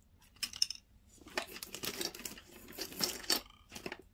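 Hands rummaging through nail supplies: a run of rustling and crinkling with light clicks and taps, starting about half a second in.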